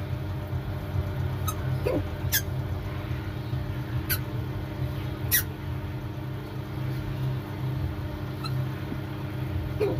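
Newly hatched blue-eyed cockatoo chick giving thin, high squeaks that drop sharply in pitch, about five of them spaced a second or more apart, over a steady low mechanical hum.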